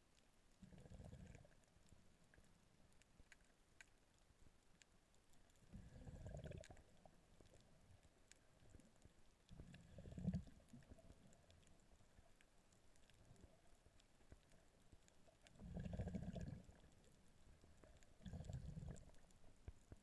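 Near silence as heard through a submerged camera housing, broken five times by brief muffled low underwater rumbles about a second each, with faint scattered ticks between them.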